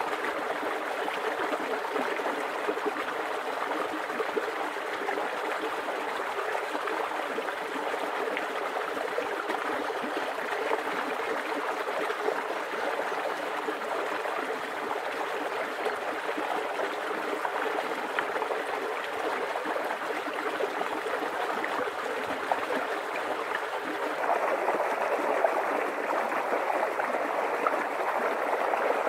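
Small stream running steadily over stones, trickling and gurgling without a break. About three-quarters of the way through, the sound shifts to a slightly louder, lower-pitched burble.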